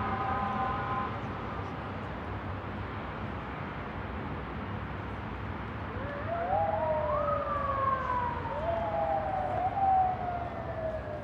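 Emergency-vehicle siren wailing in the city below from about six seconds in, each sweep rising quickly and falling slowly, over a steady hum of distant city traffic. A steady held tone stops about a second in.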